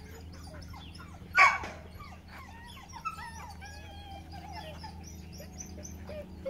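A dog gives one loud yip about a second and a half in, then a puppy whines in thin, high cries over the next few seconds, with small birds chirping throughout.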